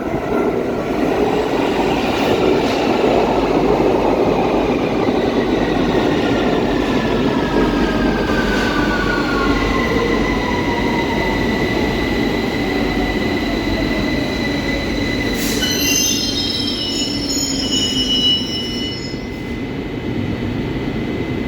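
London Underground 2009 Stock (Bombardier Movia) train arriving and slowing, its traction motor whine falling steadily in pitch over the running rumble. A steady high tone sets in about halfway through. About three-quarters of the way in come a click and a cluster of high squeals as the train brakes to a stand.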